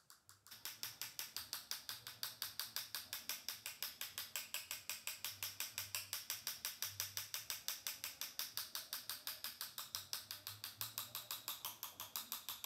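One paintbrush rapidly and lightly tapped against the body of another, a steady run of small clicks several times a second, knocking specks of paint off the loaded round-tip brush to spatter stars.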